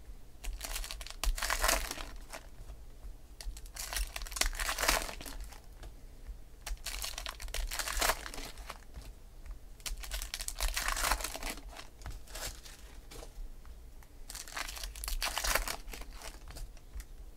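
Wrappers of Topps Gold Label baseball card packs crinkling and tearing as the packs are ripped open by hand, in several bursts a few seconds apart.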